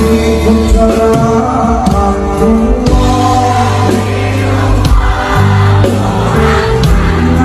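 Background music: a song with a steady beat and singing voices.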